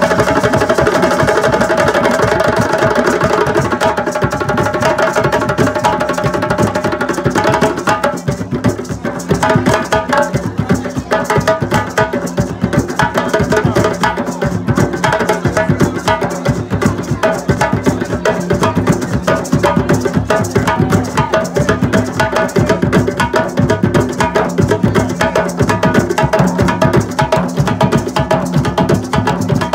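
Ensemble of rope-tuned djembe hand drums played together in a steady rhythm. The dense opening texture thins out about eight seconds in, and separate strokes carry the beat from then on.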